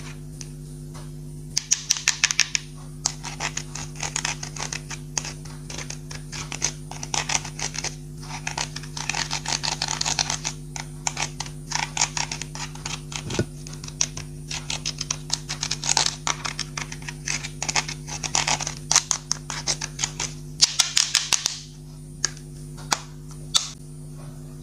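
Clear slime being squished and kneaded by hand, giving clusters of wet clicks and crackles that stop and start again every second or two. A steady low hum runs underneath.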